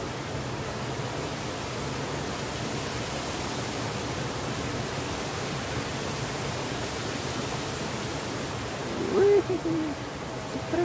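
Shallow stream rushing steadily over rocks and a small waterfall. About nine seconds in, a short hooting call sounds twice over the water.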